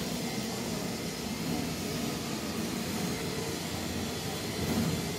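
Steady low rumble with a hiss of outdoor background noise, with no distinct event.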